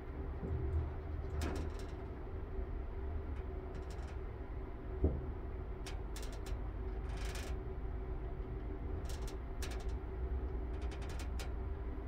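Mitsubishi Grandee elevator car travelling upward: a steady low rumble with a constant hum, light scattered clicks, and a single thump about five seconds in.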